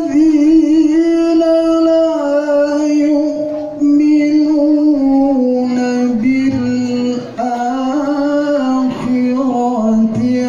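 A male qari's solo voice chanting Qur'an recitation (tilawah) in long, ornamented held notes. The melody sinks gradually by steps over the phrase, with short breaks around the middle.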